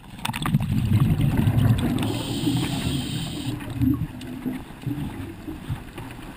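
A diver's exhaled bubbles bubbling and gurgling past the mask for about two seconds, then a steady hiss of air for about a second and a half as the diver breathes in through the regulator, followed by more, weaker bubbling.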